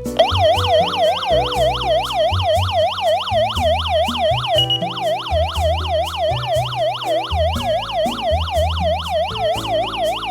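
Electronic alarm siren of a PG-505 home security alarm system, a fast warbling tone sweeping up and down about three times a second, sounding the alarm. One short high beep cuts in about halfway through, and the siren stops just before the end.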